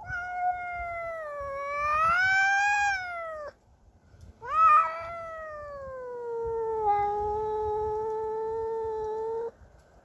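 Domestic cat yowling in two long, drawn-out calls: the first rises and then falls away, and the second jumps up sharply before sinking to a low, held moan that cuts off near the end. It is a territorial yowl at a neighbour's cat.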